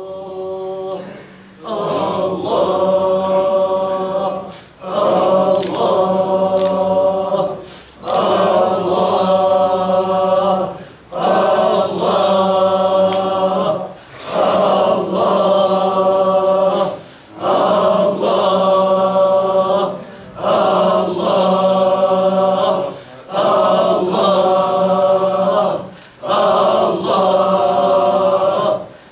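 A group of men chanting the divine name 'Allah' in unison in a Sufi dhikr, each call drawn out for about three seconds, then a short break for breath, repeated over and over at an even pace.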